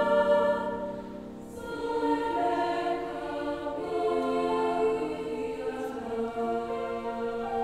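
Girls' choir singing slow, sustained chords; it softens about a second in, then swells again with held notes changing every second or two.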